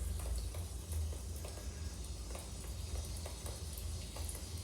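Low steady rumble, typical of wind on the microphone in a snowstorm, with faint irregular ticks scattered through it.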